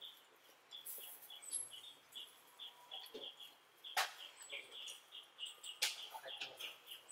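Close-miked eating sounds: chewing of a soft donut with many small mouth clicks, and the crinkle of disposable plastic gloves as the donut is pulled apart. Two sharper crackles come about four and six seconds in.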